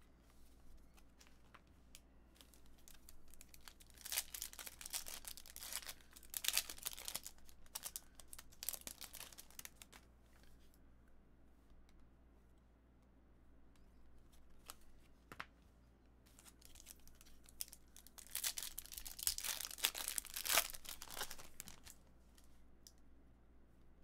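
Trading card box and pack wrapping being torn open and crumpled, in two bouts: one of about six seconds starting some four seconds in, and a shorter one near the end.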